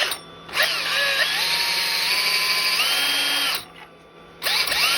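Power drill boring a small peg hole into yew wood, its motor whine rising in pitch as it speeds up. It runs for about three seconds, stops briefly, and starts again near the end.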